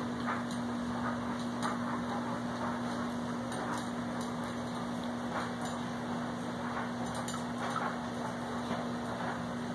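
Scattered light clicks and taps from puppies moving about a wire pen with metal food bowls, over a steady low hum.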